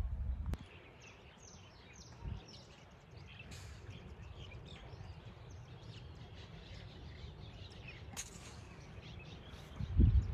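Many small birds chirping and calling over outdoor background noise, with short low rumbles just after the start and again, loudest, about ten seconds in.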